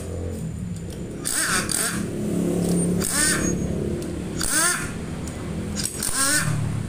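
Pneumatic impact wrench loosening camshaft bearing cap bolts on a twin-cam cylinder head: four short bursts, each with a hiss and a quick rising whine, over a steady low hum.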